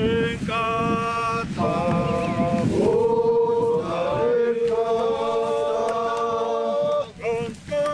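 Chanted singing: voices holding long, steady notes one after another, with short breaks and small slides in pitch between them.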